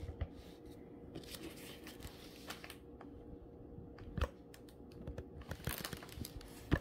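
Hands handling a large diamond painting canvas, its glossy plastic cover film crinkling, with scattered light clicks and taps. The loudest taps come about four seconds in and again near the end.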